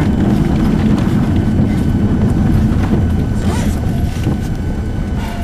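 Steady low rumble of a vehicle heard from inside the cabin, with the windshield wipers sweeping across the glass.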